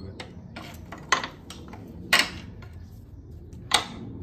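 Steel pry bar clanking against the garden tractor's frame and engine mount while prying the mount into place: three sharp metal clanks with brief ringing, and some lighter clicks between them.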